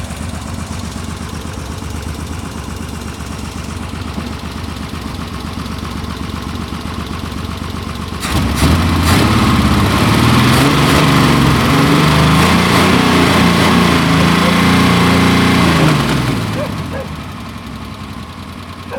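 Chevrolet Opala's straight-six engine idling with a steady rumble. About eight seconds in it is revved up and held high for about eight seconds, then drops back to idle.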